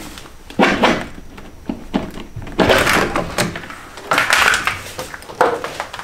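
A plastic intake manifold being worked loose and lifted off a BMW M52 engine: a series of irregular knocks, scrapes and rattles.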